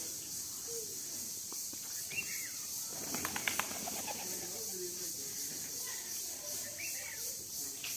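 Birds calling, with low cooing and a couple of short chirps, and a quick run of clicks about three seconds in.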